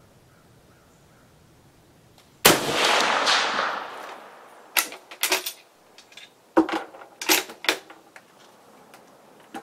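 A single shot from a Swedish M96 Mauser long rifle in 6.5x55mm, ringing out and echoing for about a second and a half. A few seconds later come two quick runs of sharp metallic clicks as the bolt is worked to eject the case and chamber the next round.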